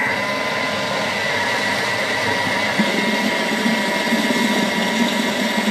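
Thermomix food processor running steadily, its blade mixing dry ingredients into a wet orange cake batter, with a constant high motor whine.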